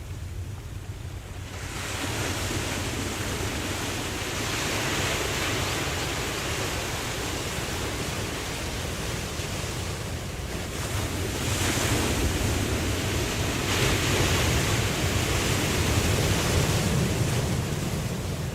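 Ocean waves breaking and washing in, a hiss that swells with each surge, over a steady low rumble. A surge builds about a second and a half in and two more come near the end.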